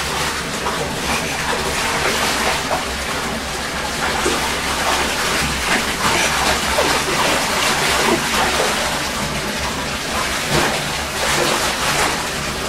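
Welsh terrier pawing and splashing about in shallow bathwater in a tub: continuous sloshing and splashing.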